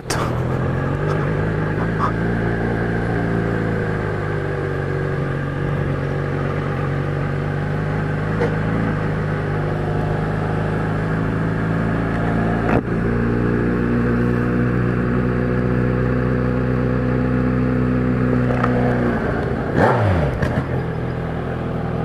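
Kawasaki Z1000's inline-four engine running at low, steady revs as the motorcycle cruises slowly, heard from the rider's seat with wind on the microphone. A sharp click comes about halfway through, and near the end the revs drop quickly.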